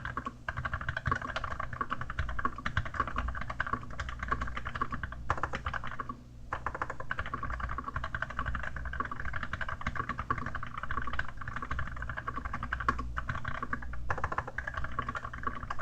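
Fast, continuous typing on an Archon AK87 mechanical keyboard with Kailh Dark Gray switches and a keyboard skin over the keys: a dense stream of key clicks, pausing briefly about six seconds in and again near the end.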